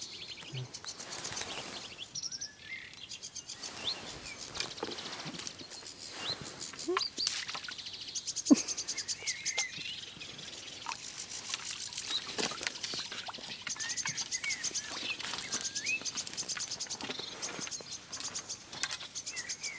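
Wild birds singing and chirping, with short gliding calls and a fast, high trill repeating through the second half. One sharp knock about eight and a half seconds in.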